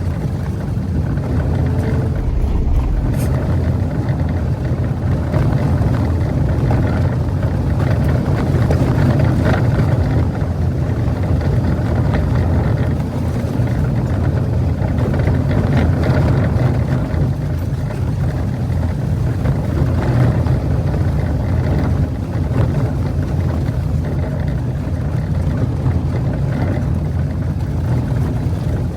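Jeep Wrangler driving steadily along a dirt off-road trail: an even, low engine rumble mixed with tyre and road noise.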